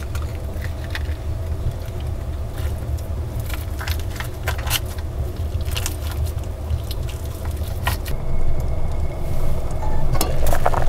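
Knife cutting raw meat in an enamel bowl, with scattered light clicks and scrapes over a steady low rumble. Near the end a glass lid clinks on a saucepan on the wood stove.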